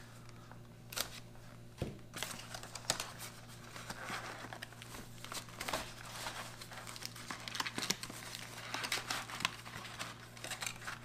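A cardboard space-food carton being cut and torn open and its wrapped contents pulled out: crinkling and tearing of cardboard and plastic packaging, many small crackles and clicks, over a low steady hum.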